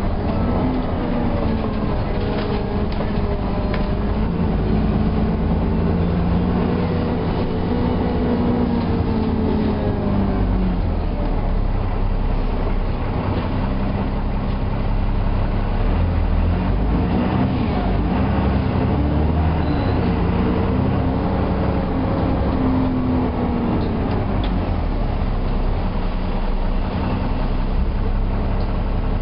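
Alexander Dennis Enviro400 double-decker bus running, its engine and driveline whine rising and falling in pitch as the bus speeds up and slows, over a steady low rumble.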